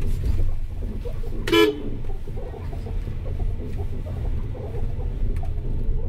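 A short car horn toot about one and a half seconds in, over a steady low rumble of road traffic.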